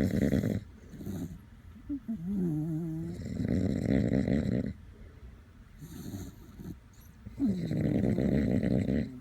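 A dachshund snoring in long, rattling bouts, three main snores with a couple of short snorts between, some with a wavering, whistly tone that dips in pitch.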